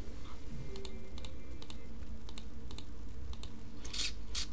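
Computer keyboard typing: scattered key clicks, with two louder key strikes close together near the end, over a steady low hum.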